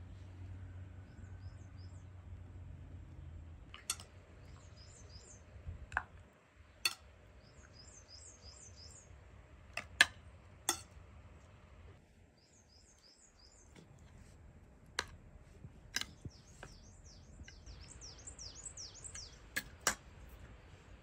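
Small birds chirping in quick high twittering runs, with several sharp clicks or knocks scattered through, the loudest about halfway.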